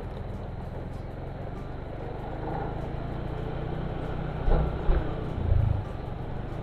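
Steady low engine hum of a slowly moving road vehicle, with three louder low thumps between about four and a half and six seconds in.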